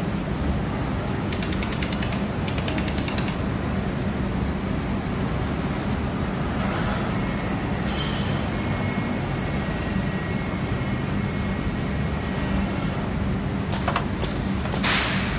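Steady hum of a robotic fiber laser welding cell, with a fast, fine crackle of the weld in the first few seconds. A short hiss of air comes about halfway through, and brief, louder hisses come near the end.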